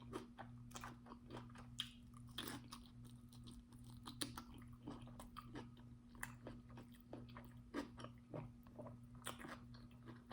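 A person chewing and biting food close to the microphone, with many irregular crunches during a cucumber, sausage and white rice mukbang. A faint steady low hum sits underneath.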